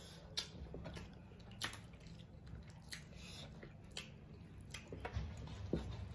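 Eating by hand: rice and fish curry squished between fingers on metal plates and chewed, with wet smacks and short sharp clicks every second or so.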